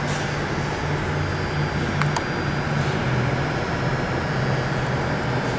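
Electric drive of a P&H WP12 welding positioner running with a steady low hum and hiss, and a light click about two seconds in.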